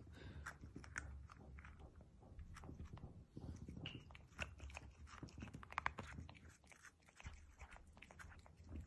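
Domestic cat licking at the open neck of a small plastic bottle: faint, irregular wet clicks of tongue and mouth several times a second.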